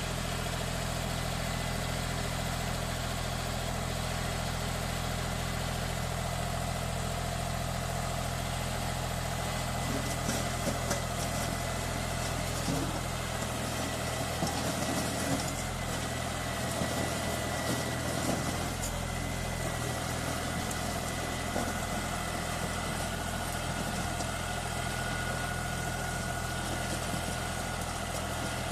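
John Deere 5310 tractor's diesel engine idling steadily, with a few light knocks and clatters in the middle.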